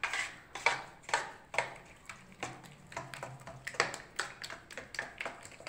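Metal spoon beating curd in a stainless steel bowl: quick, irregular clinks and scrapes of spoon on steel, about three a second.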